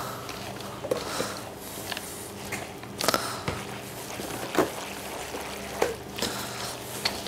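A hand squelching and churning a wet Christmas pudding mixture of dried fruit, breadcrumbs, eggs, Guinness and brandy in a stainless steel bowl: irregular soft squishes and rustles, over a steady low hum.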